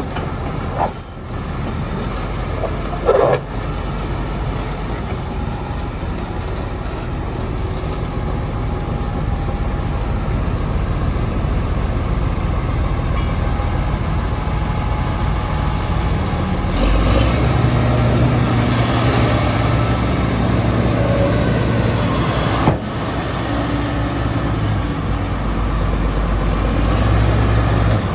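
Komatsu D85ESS-2 bulldozer's diesel engine running steadily. It comes under more load and grows louder and deeper about two thirds of the way through. There is a sharp click about three quarters of the way in.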